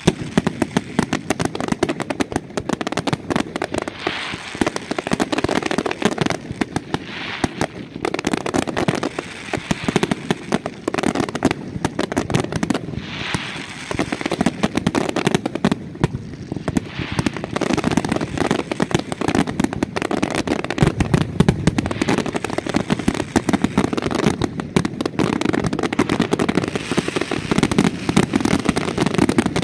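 Fireworks in the Valencian mascletà style: a dense, unbroken barrage of rapid firecracker bangs and crackle, with no letup.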